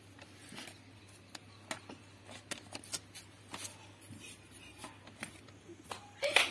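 Small sharp clicks of a fingernail pressing on a paper sheet and cracking head lice, irregular and one at a time, with the loudest cracks about six seconds in.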